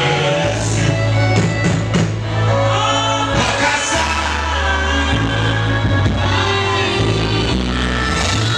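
Live worship band playing loudly, with a steady bass line and drum kit under singers' voices.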